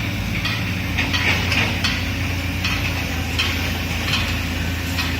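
Heavy machinery running with a steady low engine drone, over which come irregular short scrapes and clinks.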